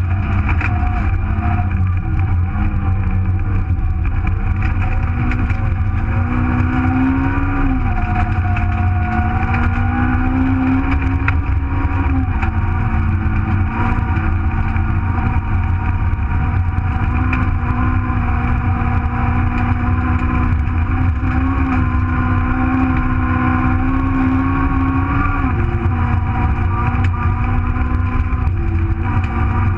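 Nissan Micra rally car's engine heard from inside the cabin at stage pace, over a constant low rumble of road and tyre noise. The engine note climbs and drops several times as the throttle is worked.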